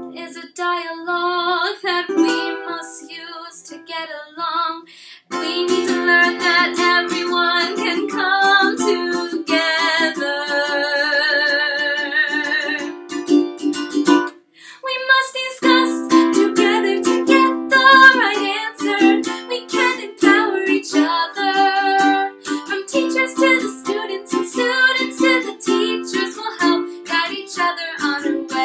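A woman singing a song while strumming chords on a ukulele. Around ten seconds in she holds one long wavering note, and the playing stops briefly twice.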